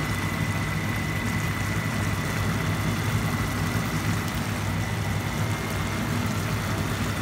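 Steady low machine hum with an even hiss over it and a faint high whine.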